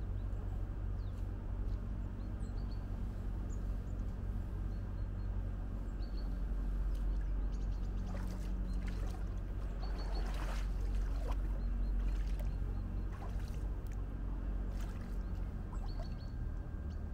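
Bare feet wading through shallow lake water, with a cluster of sharper splashes a little past the middle, over a steady low rumble.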